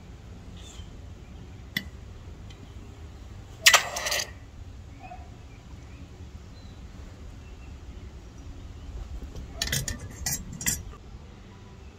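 Hard objects clinking: a sharp click, a louder clink about four seconds in, and a quick run of several clinks near the end, over a low steady rumble.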